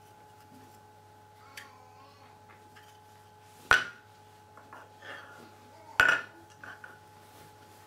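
Picture puzzle cubes set down and knocked against a wooden tabletop: two sharp clacks a bit over two seconds apart, with softer taps and sliding between, over a faint steady tone.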